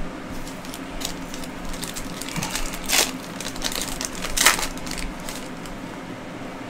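Foil trading-card pack wrappers crinkling and rustling as packs are handled, with two louder crinkles about three and four and a half seconds in.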